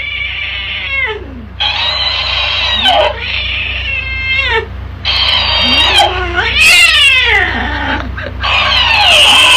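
Tabby cat yowling angrily, a string of long calls with sliding pitch, answered by a talking hamster toy that plays each yowl back in a higher, sped-up voice.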